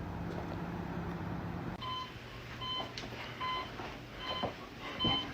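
Hospital patient monitor beeping: a short electronic tone repeating evenly about every 0.8 seconds, starting about two seconds in, over a low steady hum.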